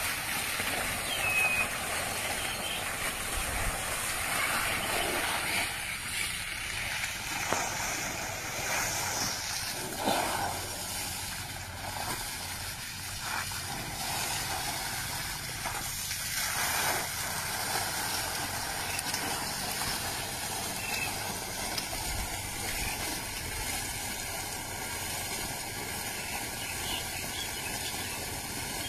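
Steady hissing rush of water jetting from a broken water pipe, with a few louder splashes.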